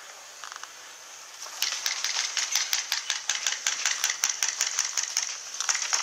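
Airsoft rifle firing semi-automatic in quick succession, about twenty sharp shots at roughly six a second beginning a second and a half in, with a steady high buzz underneath.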